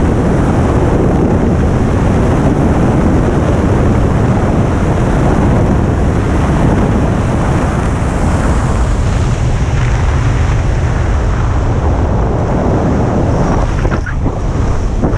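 Rushing airflow buffeting the camera's microphone during wingsuit flight: a loud, steady rush that turns gusty and uneven near the end.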